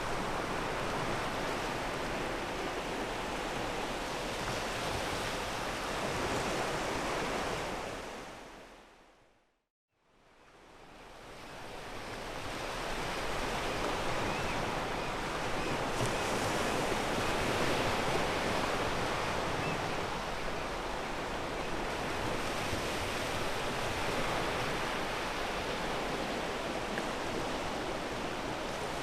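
Sea surf washing onto a pebble beach, a steady wash of waves. About a third of the way in it fades out to a moment of silence and then fades back up.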